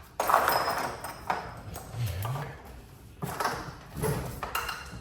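Metal clinks and knocks, several short ones, from tools and hardware being worked on a garage door's spring and end bearing plate assembly.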